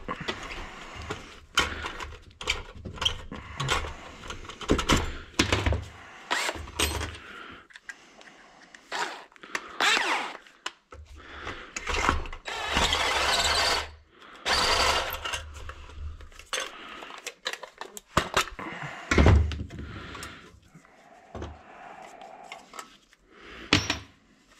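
A cordless drill-driver runs in a few short bursts, about ten seconds in and again from about twelve to fifteen seconds, backing out the muffler bolts of a Husqvarna 61 chainsaw. Between the bursts, metal tools and parts clink and knock.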